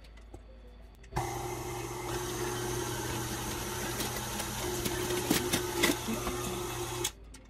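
KitchenAid 5-quart tilt-head stand mixer switched on about a second in, its motor running steadily as the wire whisk beats brownie batter in the glass bowl, with a few sharp ticks in the second half. It switches off abruptly shortly before the end.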